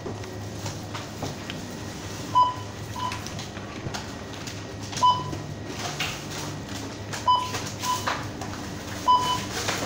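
Supermarket checkout scanner beeping: six short single-pitch electronic beeps at uneven intervals, some in quick pairs, over a steady low hum of shop noise with faint clatter.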